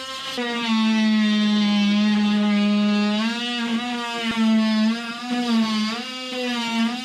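Oscillating multi-tool cutting through a glued-in plywood deck beam: a steady high buzz whose pitch sags and recovers several times as the blade is pressed into the wood.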